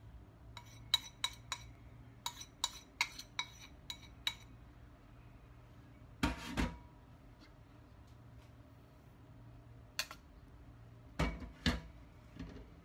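Metal spoon clinking against bowls as flour is scraped out of a ceramic bowl: about ten quick, sharp taps in the first four seconds, then a few heavier knocks later on.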